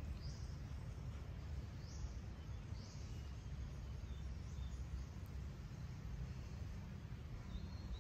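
Outdoor ambience: a steady low rumble with three brief high chirps from birds in the first three seconds.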